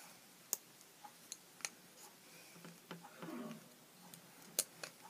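A handful of faint, sharp clicks and taps from wooden pencils being handled and bound into a cross with rubber bands.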